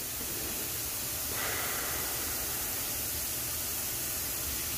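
Yellow paint poured from a mixing cup into a spray gun's aluminium gravity-feed cup: a soft, steady trickling hiss that sets in about a second in, over a constant background hiss.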